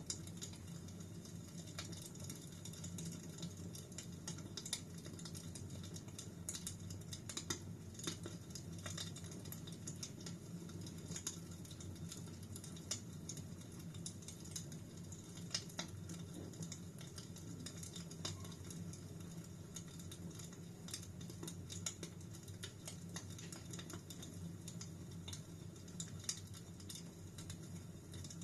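Wood fire in a fireplace crackling steadily, with scattered sharp pops over a low rumble of the flames.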